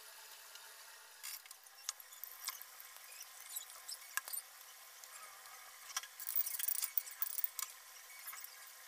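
Spices tempering in hot oil for a dal tadka: scattered crackles and spoon clicks against the frying pan over a faint sizzle, with a denser run of crackling about six seconds in.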